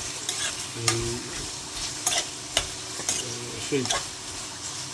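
A spoon stirring curry in a pot, clinking against the metal a handful of times, over steady sizzling from the pan.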